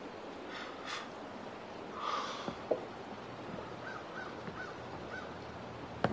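Outdoor ambience with a steady background hiss and one short, harsh bird call about two seconds in. A few faint short chirps and some light knocks follow.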